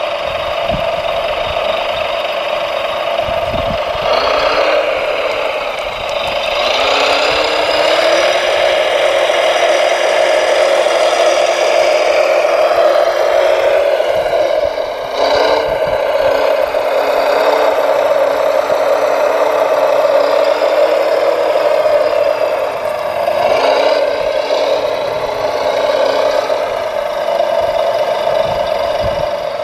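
Radio-controlled scale model Volvo L250G wheel loader running: a steady mechanical whine from its motors, with the pitch rising and falling several times as it drives and works its bucket.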